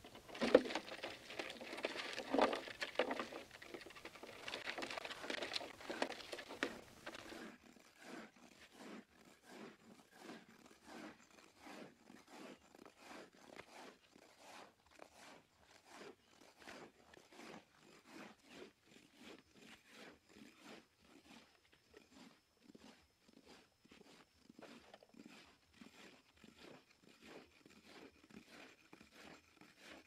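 A small hand hoe scraping into dry sandy soil in steady, repeated strokes, about two a second. Before it, for the first seven seconds or so, there is a louder stretch of dense crunching and clattering.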